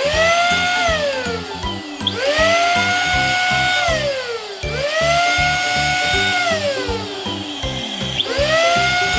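Electric balloon inflator blowing up a balloon in short bursts. Each burst's motor whine rises quickly, holds, then winds down in a long falling glide, about four times. Background music plays underneath.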